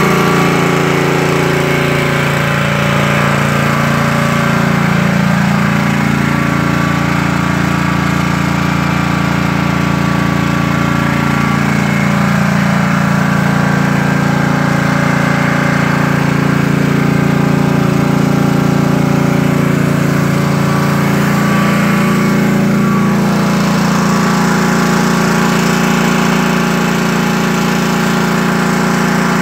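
Small gasoline engine of a pressure washer running steadily at high speed, its pitch dipping and recovering briefly a couple of times.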